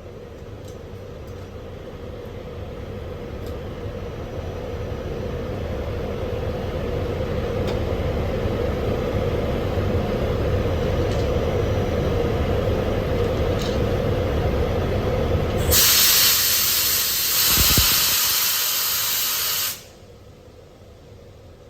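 Train rumble growing steadily louder, then a loud hiss of compressed air venting from the train's brake system. The hiss starts suddenly about three-quarters of the way through, lasts about four seconds and cuts off abruptly.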